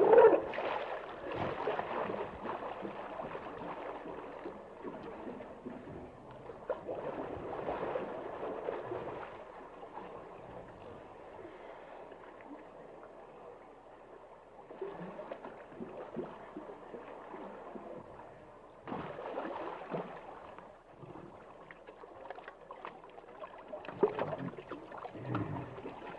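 Water sloshing and gurgling in uneven surges, loudest in the first two seconds and swelling again several times, around eight, twenty and twenty-four seconds.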